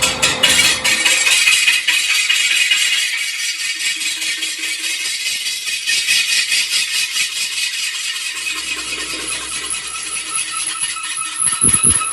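Electric arc welding on a steel truck wheel rim: a steady, rapid crackling hiss from the arc, with a couple of low knocks near the end.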